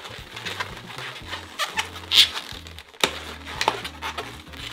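Inflated latex 260 twisting balloons squeaking and rubbing against each other as they are worked and attached, with one sharp loud squeak about halfway through and several shorter ones. Background music with a steady bass line runs underneath.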